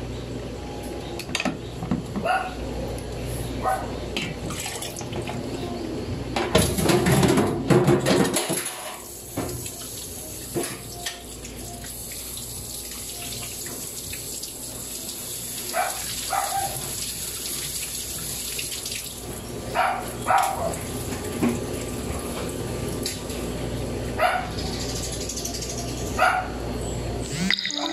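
Water running from a tap into a sink, strongest for a couple of seconds about a quarter of the way in, with scattered short knocks and clatters.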